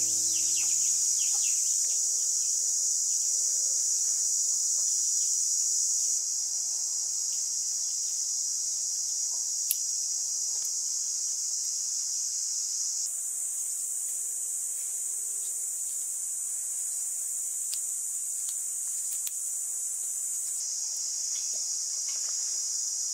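Insect chorus: a steady, high-pitched buzzing drone that runs on with small jumps in level. A few faint clicks sound over it.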